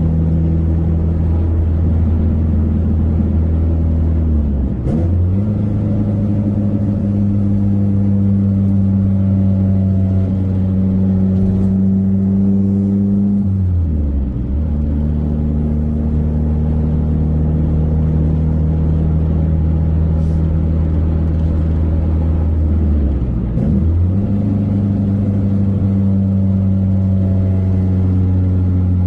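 Supercharged four-cylinder engine of a Saturn Ion Redline being driven on the road, running at a steady pitch. Three or four times the pitch briefly drops and comes back up, as at a gear change.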